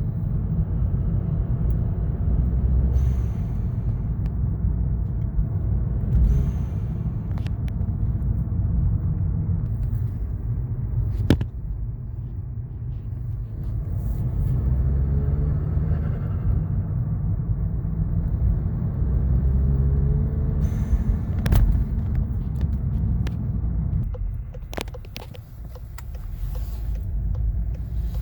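Volkswagen Golf R's turbocharged 2.0-litre four-cylinder running and revving, its pitch climbing twice under acceleration. Several short hissing flutters come as boost is let off. The owner blames this turbo flutter on the APR stage 2 tune, which he feels holds boost pressure rather than bleeding it off.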